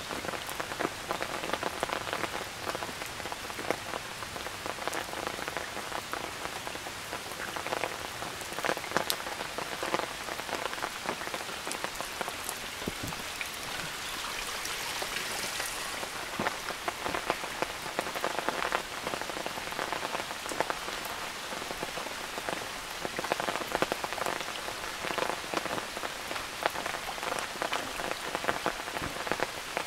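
Steady rain falling, with many separate drops striking close by. A brief swell of hiss comes about halfway through.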